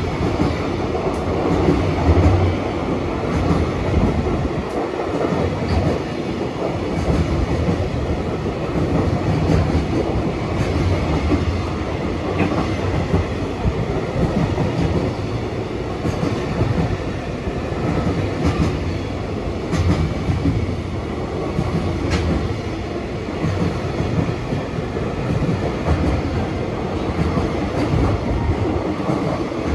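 A long container freight train, an EF210 electric locomotive hauling 24 Koki container wagons, rolling past steadily. Its wheels clatter over the rail joints in a repeating clickety-clack over a low rumble.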